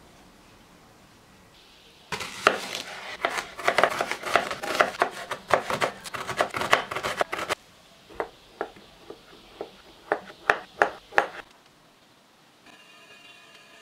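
Kitchen knife chopping onion on a wooden cutting board: a fast run of strokes lasting about five seconds, then a slower series of about eight single knocks.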